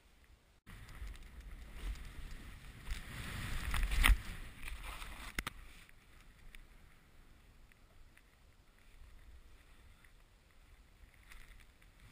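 Snowboard riding down a snowy slope: the board scraping over snow and air rushing past the camera, building to a sharp knock about four seconds in, then a quieter steady hiss.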